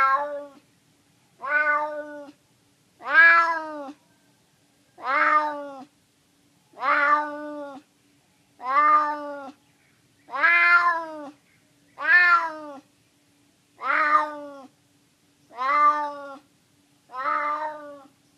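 A hungry stray cat meowing over and over, about ten separate meows each under a second long, roughly one every two seconds.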